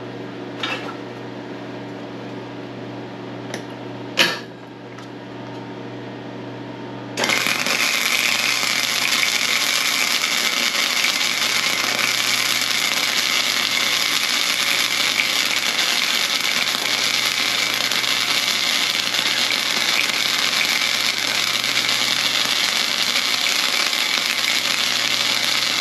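Flux-core arc welding: the arc strikes about seven seconds in and then runs as a loud, steady crackle and sizzle while a bead of .030 self-shielded flux-core wire is laid. Before it strikes there is only a steady low hum and a couple of clicks.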